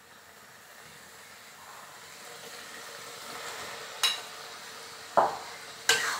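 Onion and spice masala sizzling in a metal karai, the hiss growing gradually louder. Three sharp knocks in the last couple of seconds as dried fish is tipped in from a plate and a metal spatula strikes the pan while stirring.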